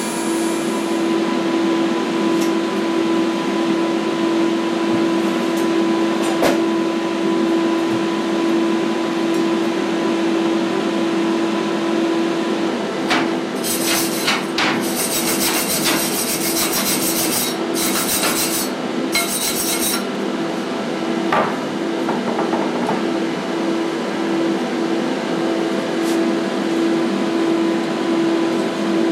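A steady mechanical hum, with a few light clicks and, about halfway through, several seconds of rapid scraping strokes.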